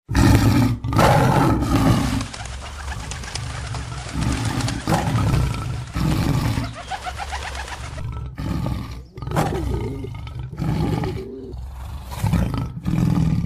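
Tiger sound effect: repeated deep roars and growls, one after another.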